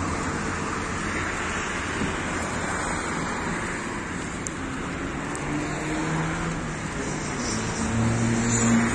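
Road traffic noise from cars passing on the street, with one vehicle's engine hum growing louder near the end.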